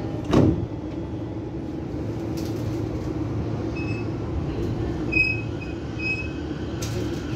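The doors of a JR E231-500 series commuter train thud shut about half a second in. The standing train then keeps up a steady low hum, with a few faint short high tones in the middle.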